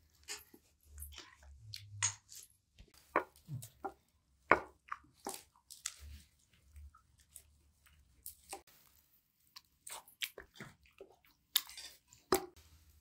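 People eating a meal: irregular chewing and crunching with sharp clicks scattered throughout.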